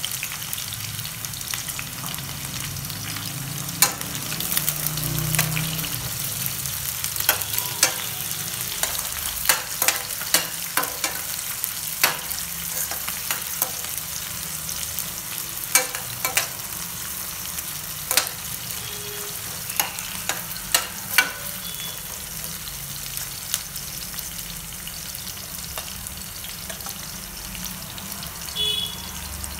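Sliced onions and green chillies sizzling steadily in hot oil in a stainless-steel kadai, with sharp clicks and clinks from a steel ladle knocking and scraping against the pan as they are stirred, most of them in the first two-thirds.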